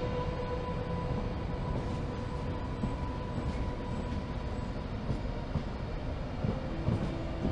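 A train of SBB passenger coaches hauled by a DB class 101 electric locomotive rolls past at low speed, a steady rumble with scattered wheel clicks.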